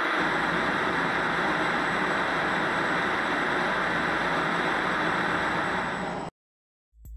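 Steady hiss of television static (white-noise 'snow'), cutting off abruptly about six seconds in.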